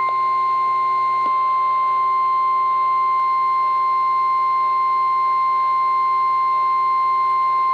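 NOAA Weather Radio 1050 Hz warning alarm tone: one steady, loud, high-pitched tone held unbroken. It signals that a warning message follows, here a special marine warning.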